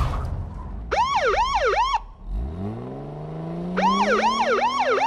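Police car siren giving two short bursts of fast rising-and-falling yelps, about a second each. Between them the car's engine revs up with a steadily rising pitch as the car strains stuck in sand.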